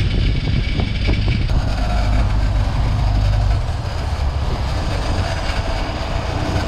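Sportfishing boat's engine running steadily, a deep drone with a hiss of wind and water over it that shifts about a second and a half in.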